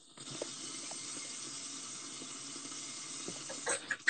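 A steady watery hiss with a few faint clicks, cutting out abruptly near the end.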